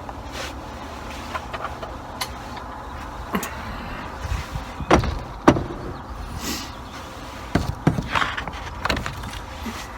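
Scattered clicks and knocks from handling a target holder while the paper target card is changed, loudest as two sharp knocks about five seconds in and a cluster near eight seconds, over a steady low rumble.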